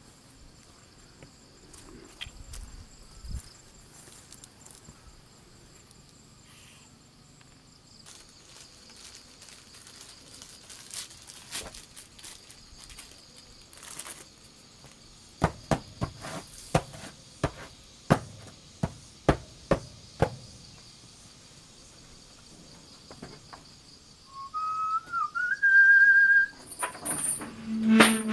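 Insects trilling steadily at a high pitch. About halfway through comes a quick run of a dozen or so sharp knocks or snaps, and near the end there is louder rustling and knocking.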